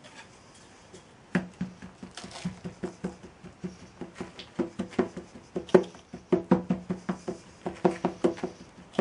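Wooden hand rammer pounding moulding sand down into a wooden moulding flask: a rapid run of knocks, several a second, each with a short ringing note, starting about a second and a half in and getting louder after about four seconds.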